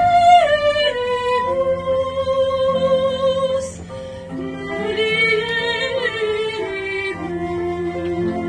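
Live acoustic chamber music: a high melody of held notes with vibrato over a lower accompaniment. The melody breaks off briefly about halfway through.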